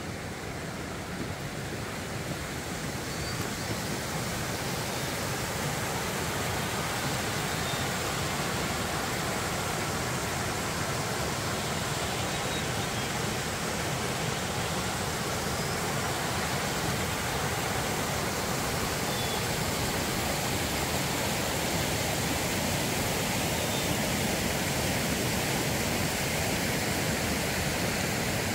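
Fast mountain creek rushing over rocks: a steady wash of water noise that builds over the first few seconds and then holds even.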